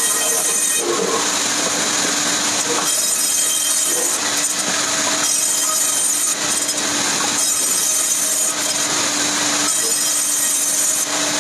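Saw cutting through wood continuously, with a steady low hum under the noise of the cut, its tone shifting every second or two.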